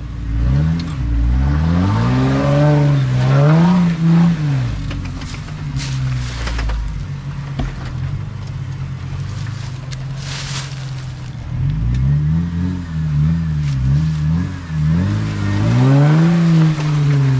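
Off-road vehicle engine revving up and down again and again as it works to climb a steep obstacle, with a steadier stretch in the middle. Short hissing bursts come about six and ten seconds in.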